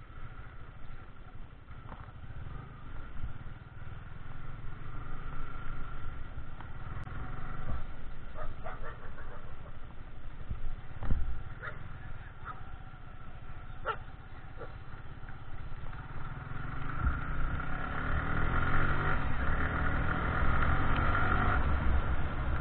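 Sport motorcycle engine running as the bike rides off slowly. It grows louder and rises in pitch as it picks up speed in the last few seconds.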